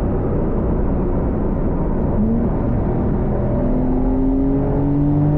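Porsche 911 Carrera S flat-six engine in Sport mode. Its note jumps up about two seconds in, as on a downshift, then rises steadily in pitch as the car accelerates.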